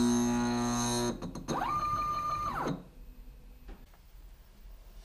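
Stepper motor drive of a homemade CNC router's Z axis during a homing run. It hums steadily as the router creeps down onto the touch probe and stops about a second in. A second stepper whine follows that rises in pitch, holds, and falls away over about a second and a half as the axis moves again, then it goes quiet.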